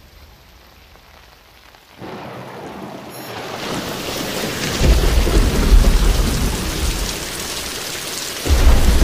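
Rain and thunderstorm sound effect. It is faint for the first two seconds, then the hiss of rain comes in and builds, with deep rolling thunder about five seconds in and again just before the end.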